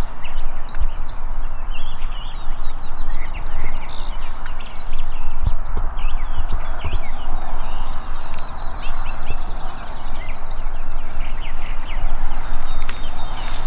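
Birds calling in the open: many short chirps and high repeated notes, with an evenly spaced run of high notes near the end, over a steady rushing background.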